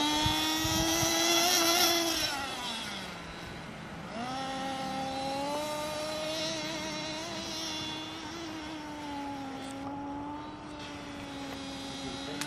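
Vrx-1N nitro RC truggy's small two-stroke glow engine running at high revs as the truggy drives, a high, buzzing whine. About two seconds in the throttle comes off and the pitch falls. Around four seconds in it climbs back up and then holds, wavering a little.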